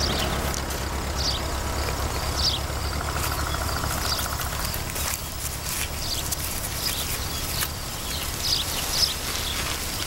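Outdoor ambience: short bird chirps recurring over a steady low rumble, with a buzzing trill for about two seconds starting around three seconds in.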